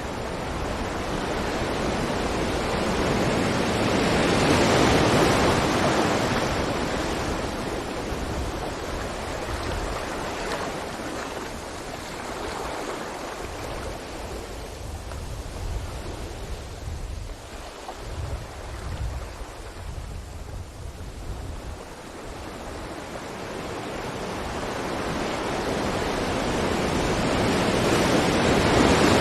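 Ocean waves breaking and washing up a beach in slow surges: one swell peaks about five seconds in, ebbs away, and another builds toward the end.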